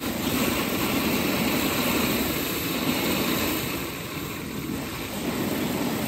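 Water running over rocks in a stony channel beside a black water pipe: a loud, steady rushing hiss that eases slightly about four seconds in.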